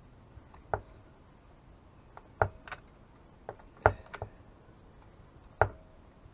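Irregular sharp clicks and knocks of a hand tool and metal parts being handled on a partly dismantled two-stroke chainsaw, about seven in all, some with a short metallic ring; the loudest comes about four seconds in.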